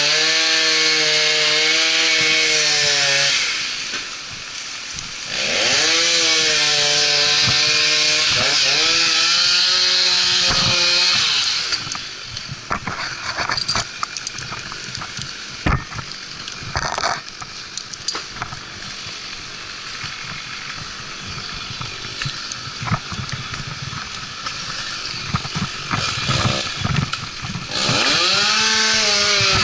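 Stihl chainsaw cutting through dead oak at full throttle, easing off briefly about four seconds in, then cutting again until about eleven seconds, when the engine note falls away. A quieter stretch of scattered knocks and scrapes follows, then the saw revs up to full throttle again near the end.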